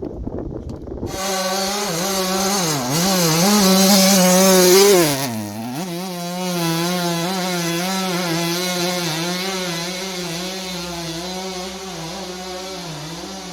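Old big-bore chainsaw, its carburettor freshly tuned, sputtering unevenly for about the first second and then running at high revs. Its pitch wavers up and down; it is loudest about four to five seconds in, dips briefly, and runs on steadily until it drops off near the end.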